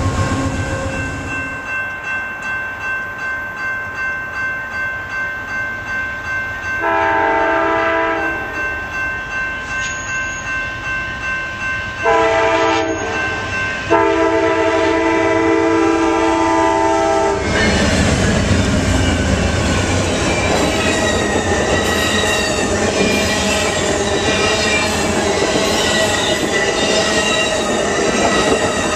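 Grade-crossing bell ringing at about two strokes a second while an Amtrak P42DC locomotive sounds its multi-chime horn, which the uploader calls a garbage horn: two short-to-medium blasts and then one long blast. From just past halfway, the locomotives and train pass over the crossing with a steady rumble and the clickety-clack of wheels on rail joints.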